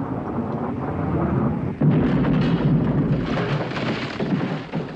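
Distant cannon fire from sailing warships: a continuous rumbling cannonade that jumps suddenly louder about two seconds in and rolls on to near the end.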